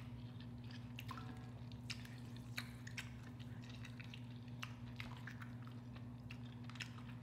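Small wet clicks and crackles of a boiled shrimp being peeled by hand and a lemon wedge squeezed over it, over a steady low hum.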